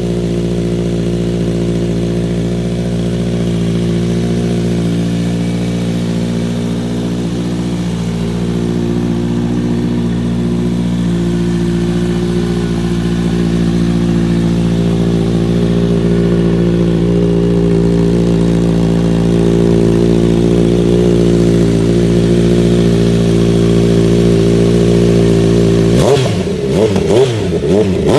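Kawasaki Z900RS inline-four engine through a Yoshimura handmade exhaust, idling steadily, then revved in quick throttle blips near the end, the pitch rising and falling.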